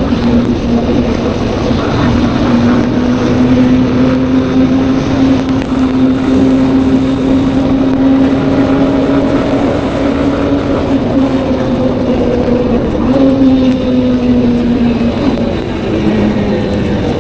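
Honda motorcycle engine running at cruising speed, a steady note that climbs a little at first, then eases down and drops lower near the end as the throttle comes off.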